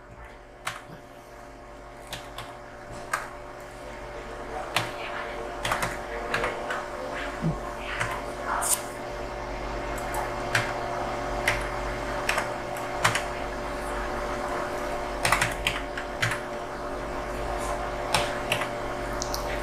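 Computer keyboard keys tapped one at a time at an uneven pace as an IP address is typed in, over a steady hum that slowly grows louder.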